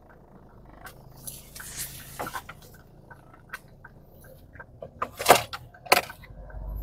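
Inside a car cabin as the car moves off: a faint low engine hum with scattered small clicks and rattles, and two louder sharp knocks about five and six seconds in.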